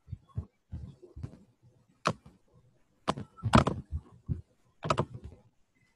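Irregular clicks and taps from a computer mouse and keyboard, with the loudest knock a little past the middle.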